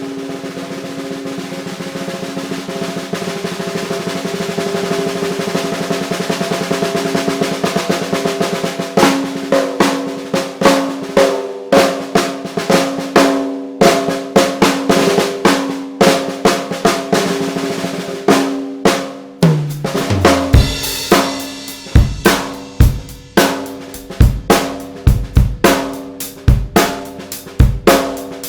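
DW Design Series 14x6.5 nickel-over-brass snare drum played unmuffled, its body ringing under every stroke. A roll swells louder over the first several seconds and gives way to separate accented snare hits. About twenty seconds in, the bass drum and a cymbal crash join for a full-kit groove.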